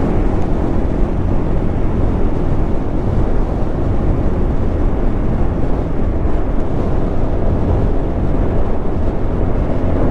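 Motorcycle riding at speed, with wind rushing over the microphone and engine and road noise in a steady roar.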